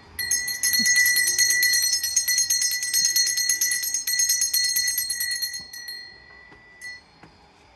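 Small puja hand bell rung rapidly and continuously for about five seconds, then left to ring out and fade.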